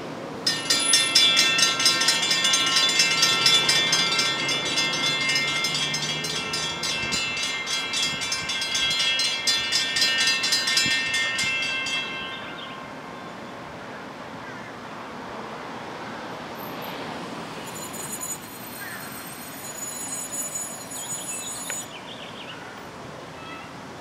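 Several railroad-crossing mechanical bells (Safetran and WC Hayes) start about half a second in and ring rapidly together as the crossing activates and the gates come down. They stop abruptly about halfway through, once the gate arms are lowered.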